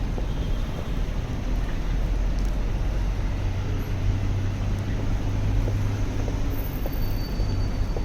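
City street traffic noise: a steady low rumble of vehicles. A low engine hum grows stronger about four seconds in and eases near the end, as a vehicle idles or passes close by.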